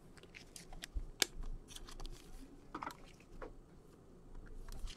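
Baseball cards handled with nitrile-gloved hands: faint scattered clicks, taps and rustles of card stock as a card is laid down on the table.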